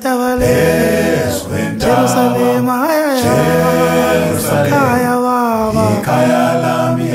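Background music: unaccompanied voices singing a slow chant in long held notes over a low sustained tone.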